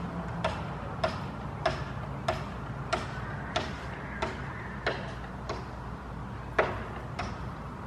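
A steady series of short, sharp clicks, about one every 0.6 seconds, each with a brief ringing tone, over a steady low hum.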